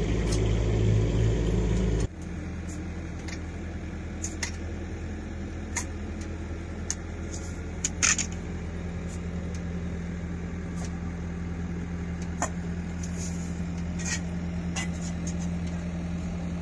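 Excavator engine running steadily, louder for the first two seconds and then a quieter even hum after a cut, with scattered short clicks and scrapes of a shovel digging by hand in the trench.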